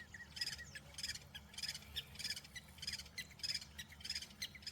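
Birds giving alarm calls: a rapid series of high chirps, repeating about twice a second, over a low steady hum.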